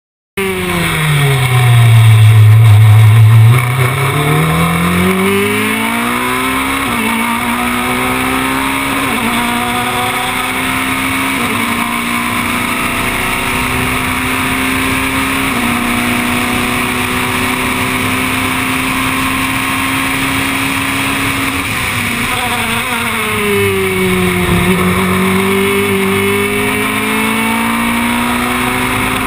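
Norma M20 FC sports-prototype race car's engine at racing speed. The revs fall steeply at the start, as under braking and downshifts. They climb again in steps through a series of upshifts and hold a steady high note, then fall a second time past the middle and rise again near the end as the car accelerates.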